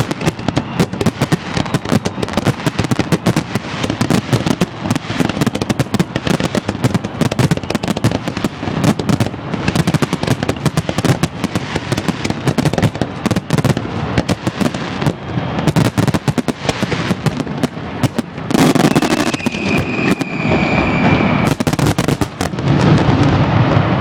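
Fireworks display: a dense, continuous run of bangs and crackling bursts. Near the end the bursts thicken into a louder, steadier mass, and a high steady whistle sounds over them for about two seconds.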